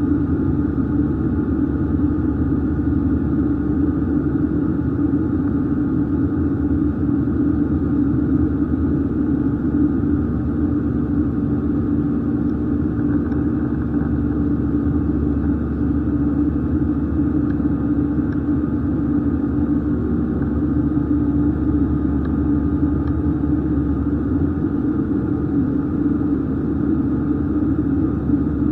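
Steady engine rumble and hum inside the cabin of an Airbus A320 airliner, unchanging throughout.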